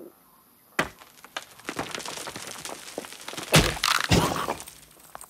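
Cartoon sound effects of rock cracking and breaking: a sharp crack about a second in, then a run of crackling and crumbling, and two heavy thuds as a stone block comes down.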